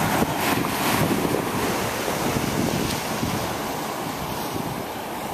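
Ocean surf washing on a sandy beach, a steady rushing noise, with wind buffeting the microphone.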